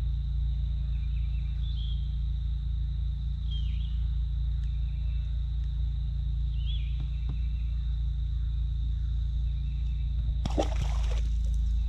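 A steady low hum with a steady high buzz and a few short bird chirps. About ten and a half seconds in comes a short splash as a just-caught bass is tossed back into the river.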